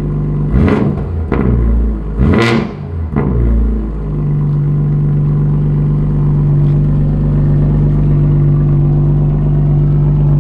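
Straight-piped 2022 BMW 840i's turbocharged 3.0-litre inline-six revved in four quick blips over the first three seconds, the third the biggest. It then settles into a steady, loud idle.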